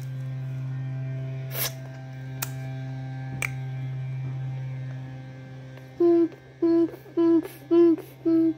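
Steady electrical hum on a landline telephone line, which the owner puts down to a noisy central office battery supply. A few sharp clicks sound in the first half. Near the end come five short beeps of one pitch, evenly spaced, like a line signal tone.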